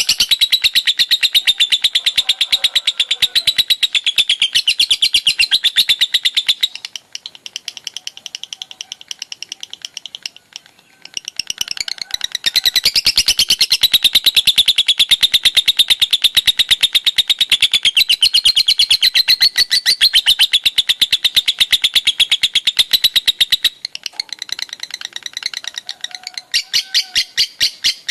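Lovebird ngekek: a long, continuous run of rapid, shrill chirps in the nonstop 'konslet' style. The run drops quieter for a few seconds about seven seconds in, comes back loud, and near the end breaks into slower, separate chirps.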